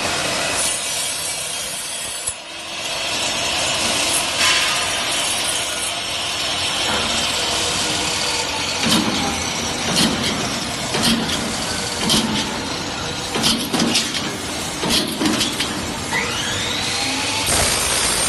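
CNC box-tube cutting and punching machine working on metal tube: a continuous harsh cutting noise, with a run of knocks about once a second through the second half.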